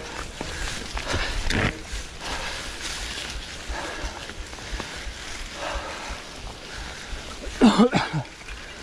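Mountain bike tyres rolling over dry fallen leaves on a forest trail, with the rider breathing hard. Near the end comes a short, loud grunt from the rider, the loudest sound here.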